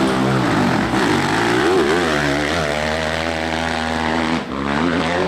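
Dirt bike engine revving hard under load as it climbs a steep hill, the pitch rising and falling repeatedly with the throttle. The sound drops out briefly about four and a half seconds in.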